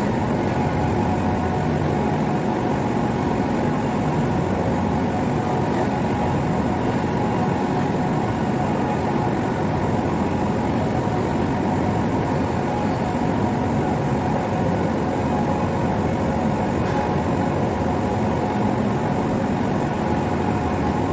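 Steady, unchanging drone of industrial machinery, an even rushing noise with a few constant tones in it.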